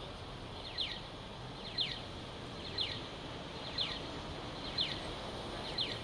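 Accessible pedestrian crossing signal chirping: a short double chirp, each falling quickly in pitch, repeated exactly once a second and starting about a second in, over a steady low street rumble.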